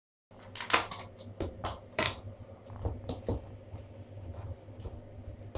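Plastic tubs and lids being handled: a quick run of sharp clicks and knocks, thinning out after about three seconds, over a steady low hum.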